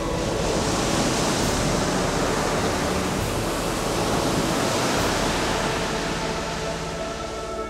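Sea surf: a steady rushing wash of waves breaking on a shore, with faint held music tones beneath.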